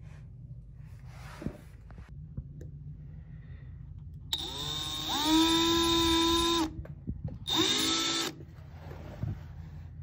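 Electric drill boring a small pilot hole through a boat hull's gel coat and blue painter's tape. It runs in two bursts: the first spins up with a rising whine and holds steady for about two seconds, and a shorter second burst follows a second later.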